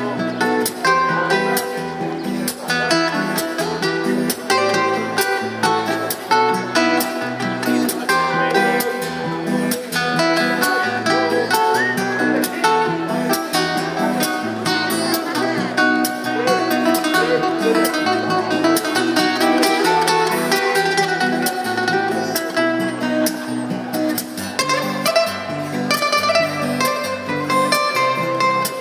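Two acoustic guitars playing an instrumental passage: quick picked melody notes over a moving line of low bass notes.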